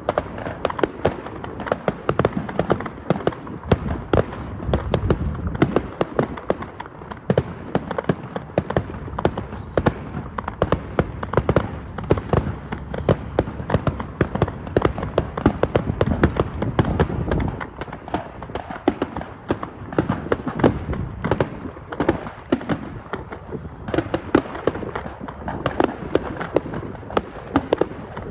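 Fireworks display: a dense, continuous barrage of shell bursts and crackling bangs, several a second, with heavier low booms about four to six seconds in and again around sixteen to seventeen seconds.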